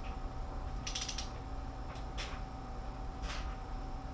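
Torque wrench ratcheting on cylinder head bolts, first pass to 20 ft-lb: a short burst of ratchet clicking about a second in, then two fainter single clicks.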